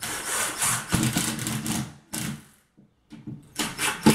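Impact driver running in short bursts as it drives drywall screws into a ceiling drywall patch, its rapid hammering making a racket: a run of about two seconds, a short blip, a brief pause, then another run near the end.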